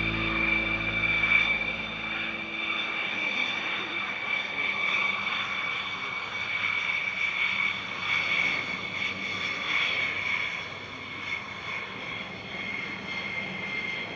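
Boeing F-15E Strike Eagle's twin F100 turbofan jet engines running with a steady high whine over a rushing roar.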